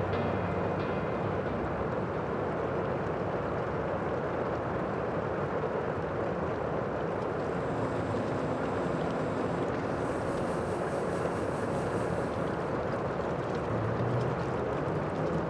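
Steady rushing outdoor ambience at an even level, with faint low hums coming and going.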